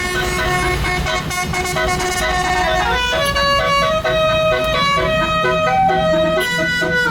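Tour bus 'telolet' multi-tone musical horn playing a tune: several pitched tones sound together and move in steps from note to note, with a low rumble underneath.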